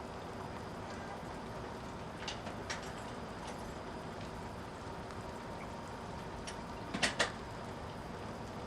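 Steady background hiss with a faint hum, as when recording outdoors as the wind starts to pick up. A few small clicks come about two and three seconds in, and a quick cluster of louder knocks about seven seconds in.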